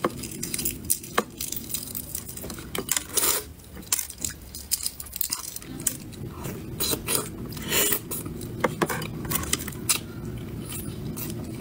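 Close-miked eating: chewing and biting, with irregular sharp clicks of utensils against a dish.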